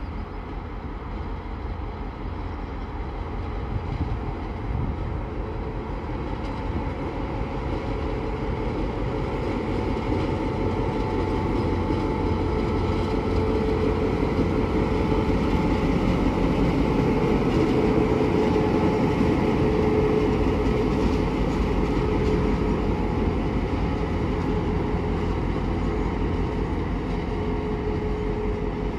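EMD G26CW diesel-electric locomotive running under power as it hauls a train of tank wagons past, its 16-cylinder two-stroke engine giving a steady low hum. It grows louder as it comes closer, is loudest about two-thirds of the way through, then eases slightly as it draws away.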